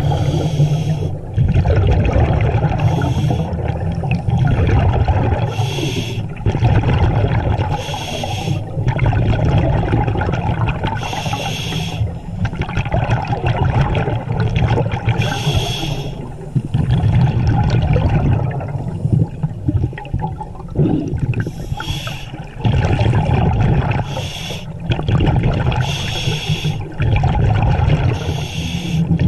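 Scuba regulator breathing heard underwater: repeated bursts of hiss and bubbling every few seconds over a steady low rumble.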